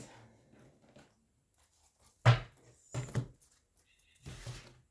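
Tarot cards being handled on a table: a sharp tap about two seconds in, two lighter taps a second later, and a brief rustle of cards near the end.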